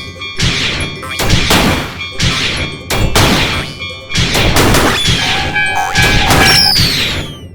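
Cartoon sound effects: a rapid series of crashes and thuds over music, with falling whistle-like glides in the second half.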